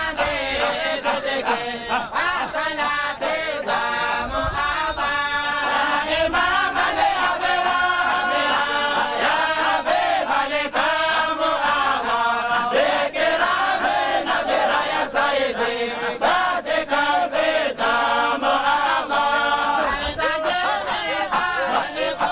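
Group of men chanting a Sufi dhikr together, many voices in unison repeating a rising and falling phrase.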